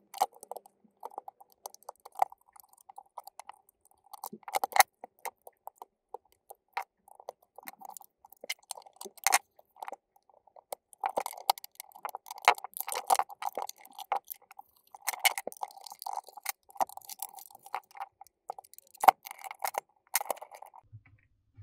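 Tweezers prying and scraping at the rubber feet and stickers on the plastic underside of a SpaceMouse Pro, with scattered sharp clicks and small rattles of plastic and metal.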